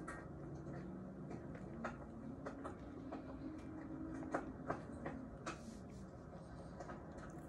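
Close-up chewing with a few sharp, wet mouth clicks and smacks, the loudest two close together just past the middle.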